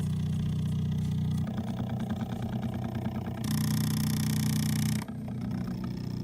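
Small stepper motors of a mini CNC built from DVD-drive mechanisms, driven by A4988 drivers, whining as the axes move. The pitch jumps to a new steady note with each new move, about three times; during one move, from about three and a half to five seconds in, a brighter hiss is added.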